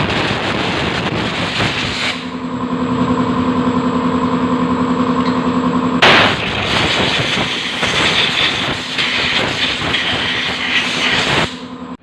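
Long hissing blasts of spray blowing through a small-engine carburetor's jets to clear a blockage, over a steady mechanical hum. One blast stops about two seconds in; another starts about six seconds in and runs for over five seconds.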